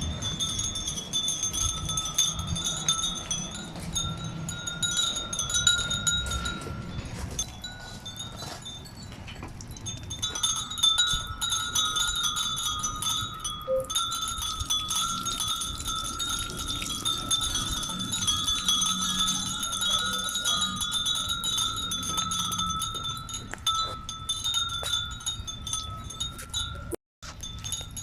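Many Japanese furin wind bells ringing together in a continuous high tinkling. The ringing thins out for a couple of seconds around eight seconds in, then fills again, and drops out for a moment near the end.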